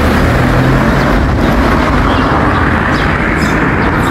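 Steady, loud rushing of wind buffeting the microphone as it moves along the street.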